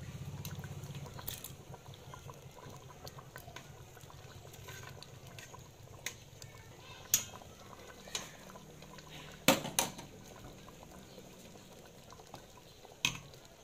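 Menudo stew simmering in a stainless steel stockpot, with a ladle stirring through it and knocking sharply against the pot a few times, loudest about nine and a half seconds in.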